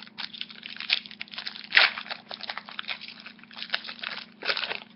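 Foil booster-pack wrapper crinkling and being torn open, a dense run of rough crackles with a louder rip just under two seconds in and another burst near the end.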